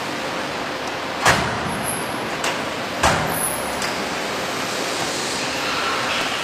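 Steady machine noise from a CNC corner crimping machine for aluminium profiles, broken by a few sharp knocks, the loudest about a second in and again about three seconds in.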